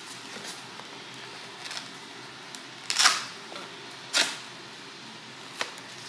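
Cardboard packaging of a mug set being handled and opened: a few short, sharp rustles and taps, the loudest about three seconds in.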